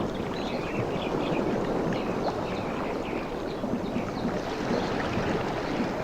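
Waves washing and lapping on a beach in a steady rushing wash that swells and eases a little, with scattered faint high chirps over it.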